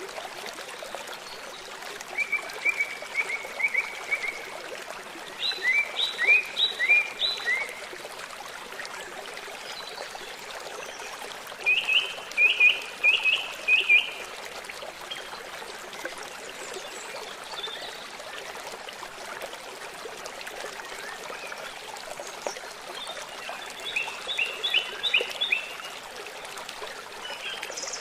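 Songbird singing four short phrases of quick repeated chirping notes, over the steady trickling of a stream.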